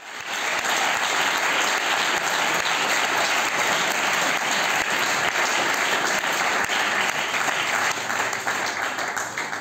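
Audience applauding: dense, steady clapping that swells up at the start and thins out near the end.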